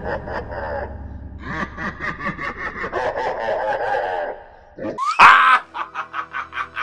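Someone laughing in long runs of quick ha-ha pulses, with a short break. About five seconds in comes a loud, sharp sound that climbs steeply in pitch, and the laughing then goes on.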